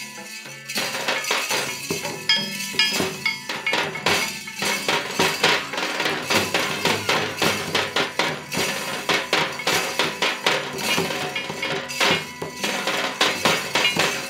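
Folk drum ensemble playing a fast, dense rhythm on two-headed barrel drums and a stick-struck side drum, with sharp clinking strokes on top. It starts about a second in, after a short keyboard passage.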